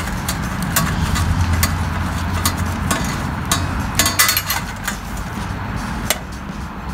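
Gloved hands unscrewing a wing nut and handling the metal base plate of a kerosene heater: scattered small metallic clicks and clinks, over a steady low hum.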